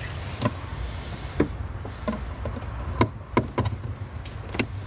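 Light clicks and taps of handling as things are moved about against the car's interior trim and window, irregularly spaced, over a low steady rumble.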